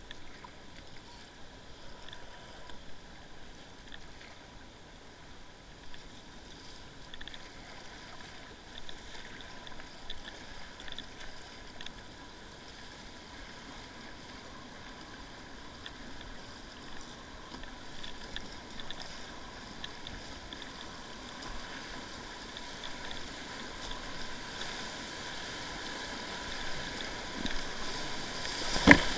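Kayak paddle blades splashing into choppy river water, with the rush of moving water growing louder as the kayak nears and enters a whitewater rapid; one loud splash just before the end.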